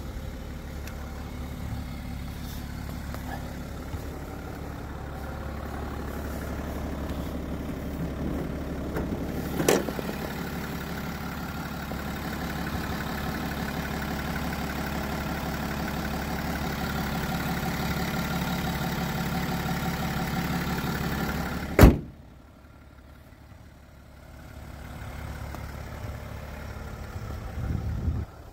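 2017 BMW X5 xDrive35d's 3.0-litre twin-turbo inline-six diesel idling steadily. There is a sharp click about 10 s in. About 22 s in comes a single loud bang, the bonnet being shut, after which the idle is fainter.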